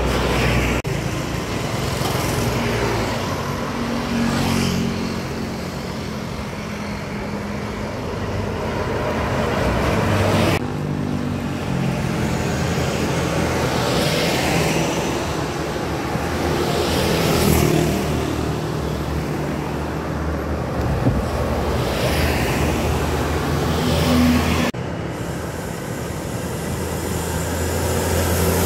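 Buses driving past on a road, engines running amid traffic noise, with the sound of each vehicle swelling and fading as it passes. The sound changes abruptly a few times.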